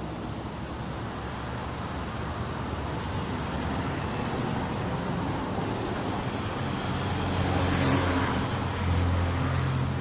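Road traffic noise with a motor vehicle passing close by: its low engine hum and tyre noise swell to a peak about eight seconds in.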